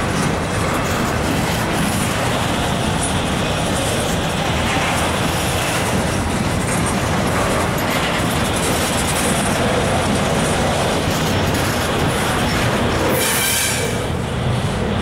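Freight train cars, double-stack intermodal container cars, rolling past with a steady rumble and rattle of wheels on rail. A brief high-pitched wheel squeal comes about thirteen seconds in.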